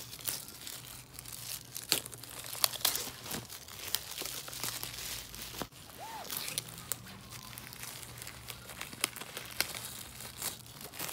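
Plastic shrink wrap crinkling and tearing as it is worked off a DVD box set, with many sharp crackles.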